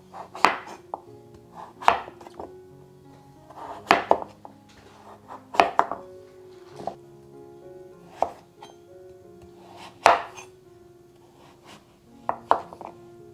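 Chef's knife cutting peeled yellow pumpkin into cubes, each stroke ending in a knock of the blade on a wooden cutting board, about one every one to two seconds, with two quick cuts near the end.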